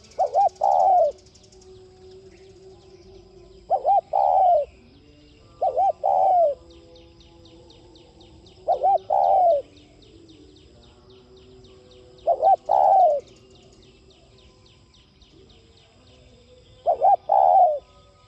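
Spotted dove cooing: six phrases a few seconds apart, each two quick short notes followed by a longer, rounder coo.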